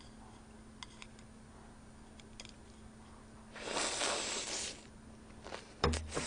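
Mouth-close eating sounds: faint chewing clicks, then a noisy slurp lasting about a second as noodles are sucked in. Near the end come a sharp clack and a dull thump as a ceramic plate and chopsticks are set down on the table. A faint steady low hum runs underneath.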